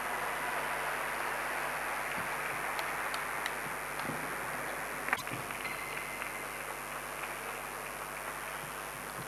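Crowd applause from spectators, gradually dying away, with a few sharp ticks; the loudest tick comes about five seconds in.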